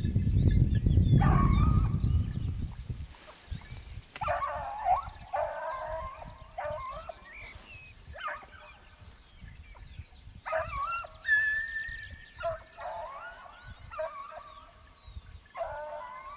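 Hunting hounds baying in repeated bursts from the hillside, several calls in a row with short pauses. A loud low rumble on the microphone covers the first few seconds.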